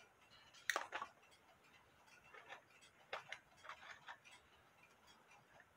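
Light, irregular clicks and taps of small metal clock parts being handled and rummaged through while searching for an E-clip, the sharpest pair of clicks about a second in and a few softer ones after.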